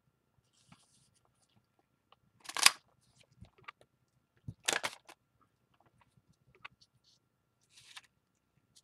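Handheld flower-shaped craft paper punch being squeezed to cut through an old book page: two short, sharp snaps about two seconds apart, with lighter clicks and paper being handled between them.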